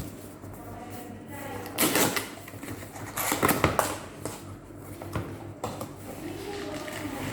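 Clattering and rustling handling sounds, with two louder bursts about two and three and a half seconds in.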